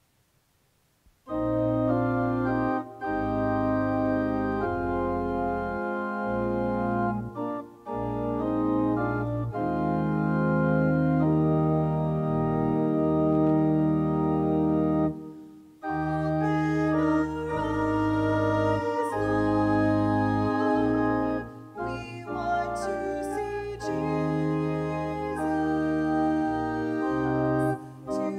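Church organ playing slow, sustained chords with a moving bass line. It comes in about a second in and pauses briefly between phrases.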